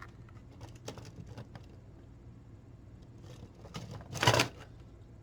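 3D-printed plastic track links being handled, clicking against each other a few times and then clattering more loudly for about half a second near the end.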